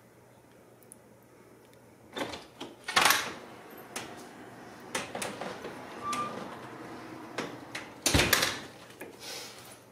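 Wooden door knocking and rattling as cats paw and bat at it through the gap underneath: a string of irregular thumps starting about two seconds in, loudest about three seconds in and again about eight seconds in.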